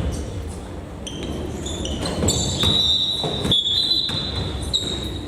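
Basketball shoes squeaking on the gym floor during play: a run of short, high squeaks that step in pitch, then a longer held squeal lasting about two seconds.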